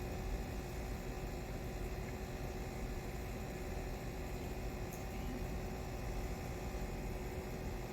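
Steady background hiss with a low electrical hum. There is a faint tick about five seconds in.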